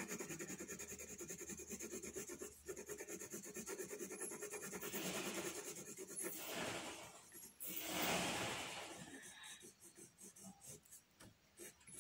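6B graphite pencil shading on paper: quick back-and-forth scratching strokes, about eight a second, then a few longer, louder sweeps from about five seconds in, fading to lighter, scattered strokes near the end.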